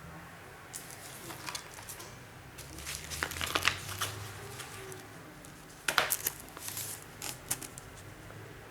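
Unboxing handling noises: crinkling and rustling packaging with light clicks and taps as the parts are moved. They come in three bunches, the loudest near the middle and about six seconds in.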